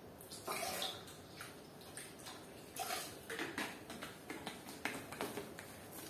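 Faint handling of plastic cleaning-product bottles, with small clicks of caps and several short splashy pours of liquid into a plastic mop bucket.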